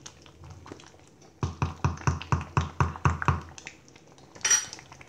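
A wooden spatula knocking against the sides of a metal cooking pot as a thick sauce is stirred: a quick run of about four knocks a second for two seconds. A short rustle follows near the end.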